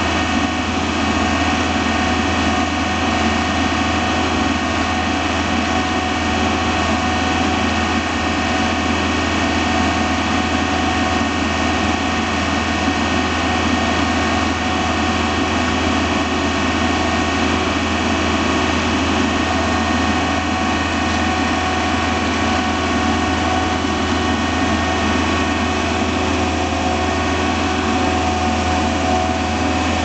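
A 2006 John Deere 320 skid steer loader's diesel engine running steadily under load while pushing snow, heard from the operator's seat with a strong low hum.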